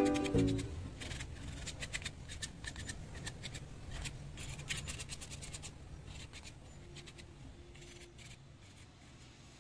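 Quick small scratches and clicks of hands working a small buffalo-horn slingshot piece, fading away about six seconds in. A music cue ends right at the start.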